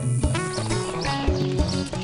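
Instrumental intro music with a repeating bass line and a regular beat.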